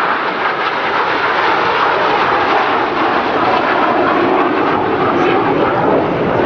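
Display aircraft flying overhead, its engines making a loud, steady rushing noise with a faint engine tone through it.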